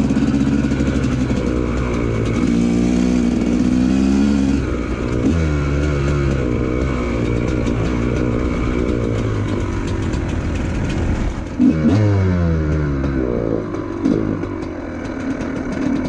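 TM 250EN's 250 cc two-stroke single-cylinder enduro engine being ridden, its revs climbing and dropping over and over with the throttle, with a sudden sharp burst of revs about twelve seconds in.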